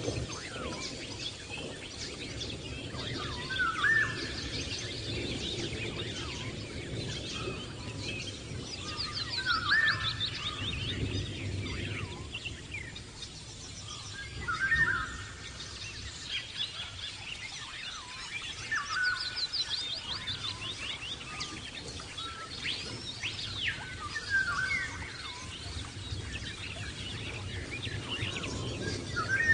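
Several birds calling and singing: a short rising call repeated about every five seconds, with rapid high trills in between, over a low steady background rumble.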